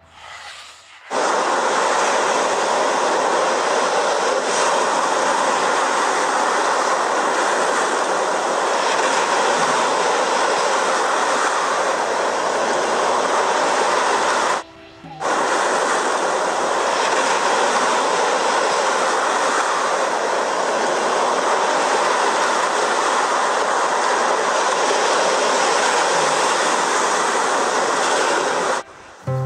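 Steady rushing sea-water ambience, even and without tones, in two stretches of about fourteen seconds with a short break about halfway through.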